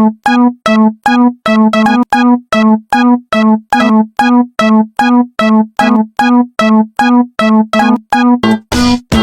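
Japanese railroad crossing (fumikiri) alarm ringing its repeated bell-like ding, one pitch struck about three times a second, each strike dying away quickly. A lower, fuller sound joins the dings near the end.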